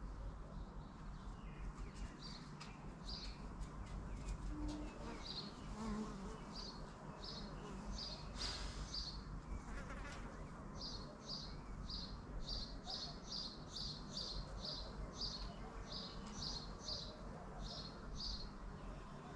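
Bees buzzing, with a short high chirp repeated over and over, about two a second, through most of the clip, over a low steady rumble.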